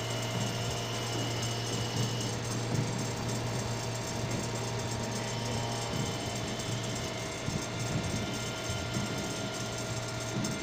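CNC turning machine running with a steady machine hum. A thin high whine comes and goes, and a few faint knocks sound over the hum.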